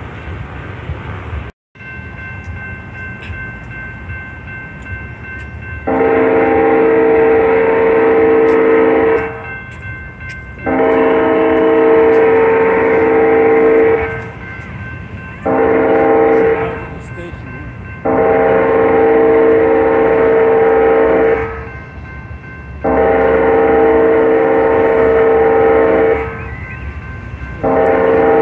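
Approaching train's multi-chime air horn sounding the grade-crossing signal: long, long, short, long, then the pattern starting again with a long blast and the start of a short one. Each blast is a steady chord of several pitches.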